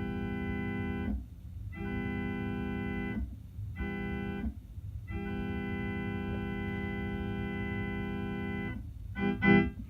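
Electronic keyboard playing a chord that imitates a Hancock 4735 chime whistle, in the retuned voicing of the Virginia and Truckee D1. It sounds in the grade-crossing pattern, long, long, short, long, and then gives two short, louder blasts near the end.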